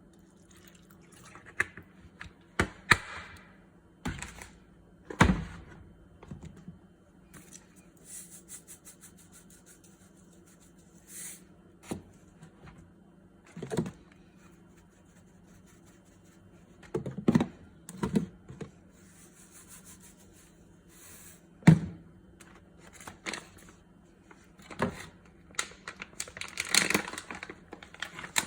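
Kitchen preparation sounds: scattered, irregular knocks, taps and clicks of utensils and dishes, with brief rustling in between.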